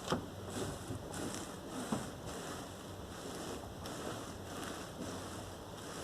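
VAZ 21099 with a steady running noise and a couple of sharp knocks, one right at the start and one about two seconds in: the knock under the hood that comes with turning the steering, which the owner suspects is a worn steering rack.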